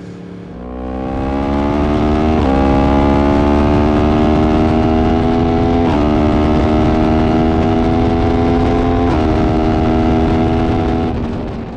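2016 Yamaha R1's crossplane inline-four, fitted with an Akrapovic exhaust, under hard acceleration: the engine note climbs steadily in pitch, drops at each of three upshifts, and eases off as the throttle closes near the end.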